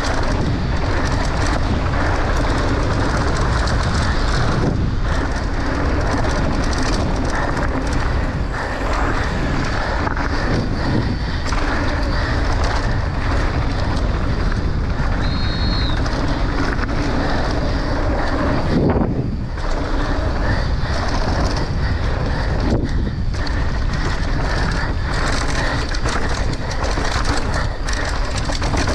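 Downhill mountain bike rolling fast over a dry dirt and gravel trail, heard from a camera on the bike: a continuous rumble and rattle of knobby tyres on loose ground and the bike shaking over bumps.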